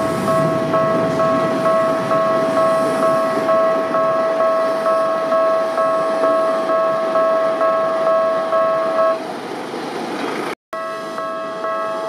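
Japanese level-crossing warning bell ringing steadily, a little over two strikes a second, over the rumble of a passing Keisei 3850-type train that fades within the first few seconds. The bell stops about nine seconds in, and after a brief dropout it is ringing again.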